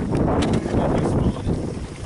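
Wind buffeting the microphone as a steady low rumble, with two short clicks in the first half second.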